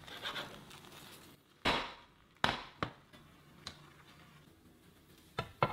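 Sharp knocks and clacks of a non-stick frying pan and cooking utensils being handled on the stovetop, a few at irregular intervals. The loudest comes about a second and a half in, with a short hiss after it.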